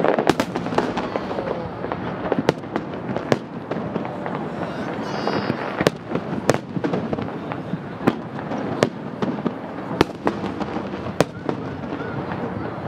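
Aerial firework shells bursting, a dozen or so sharp bangs at irregular intervals about a second apart, over a steady murmur of crowd voices.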